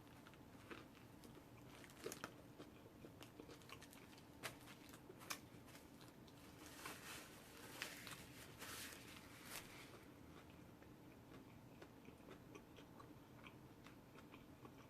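Faint chewing of a rotisserie chicken sub sandwich, with a few soft biting and crunching clicks that come more often about halfway through.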